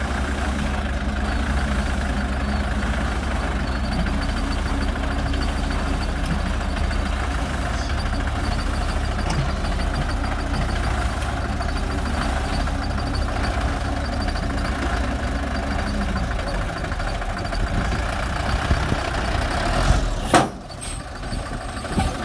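Hoa Mai light dump truck's diesel engine running steadily with its bed raised to dump sand. The low drone eases about three-quarters of the way through, and a single sharp clack comes near the end.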